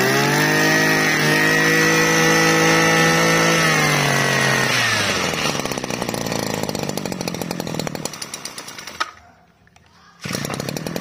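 Small two-stroke brush cutter engine revved up to full throttle and held there for about four seconds, then easing back down to a low run. It cuts out about nine seconds in, and engine sound returns about a second later.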